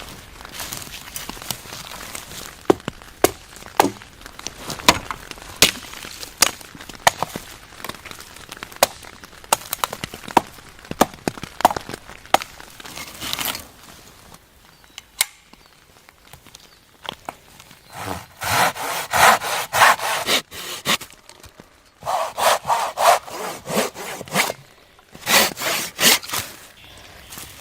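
Hand saw cutting wood, in three bursts of quick back-and-forth strokes in the second half, after a stretch of scattered sharp knocks and snaps.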